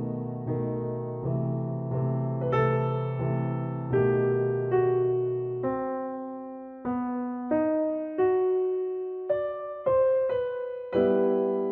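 Background piano music: struck keyboard notes that fade after each strike, over a low held chord in the first half, then a sparser line of single notes.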